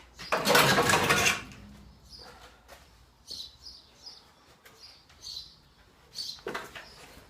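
Loose cut-out sheet-steel car panels clattering loudly for about a second, with a shorter clatter near the end. Small birds chirp repeatedly in between.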